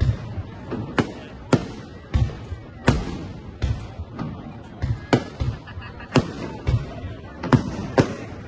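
Aerial fireworks shells bursting in quick succession: a sharp bang every half second or so, each followed by a short echoing tail.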